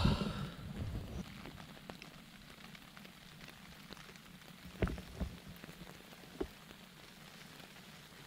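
Rain falling on a tent: a steady soft patter with a few sharper drop taps in the second half, after a brief thump right at the start.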